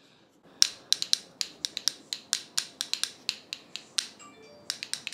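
Homemade finger castanets, metal bottle caps glued onto folded cardboard, clacking together in a quick, uneven run of sharp clicks, about four a second, with a short break about four seconds in. The clacking shows the castanets work well.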